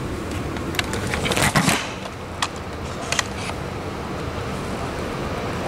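A portable radio being handled and set up: a few short clicks and knocks, a quick cluster about a second and a half in, then single ones at about two and a half and three seconds, over a steady background hiss.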